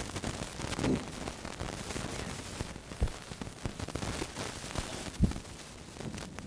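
Chalk on a blackboard, with soft scraping and taps as the board is drawn on, over a steady hiss. One low thump comes a little after five seconds in.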